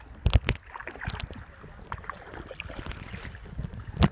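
Kayak moving through calm water, with paddle strokes swishing and lapping against the hull. There are a few sharp knocks, two close together just after the start and a louder one near the end.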